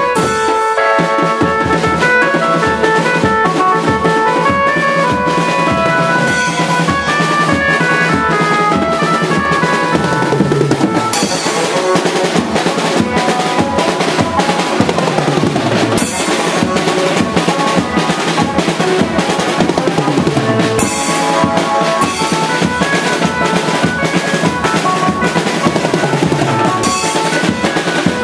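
Live banjo-party band music: fast, driving drumming on snare-type drums played with sticks, over an electronic keyboard melody that is strongest in the first part.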